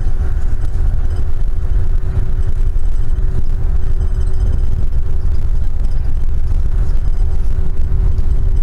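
Steady low engine and road rumble inside a moving coach bus at cruising speed, with a thin steady whine running under it.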